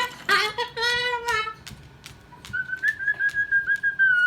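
Moluccan cockatoo vocalising: a sung, wavering note for about a second and a half, then a steady high whistle held for the last couple of seconds. Scattered sharp clicks come through it.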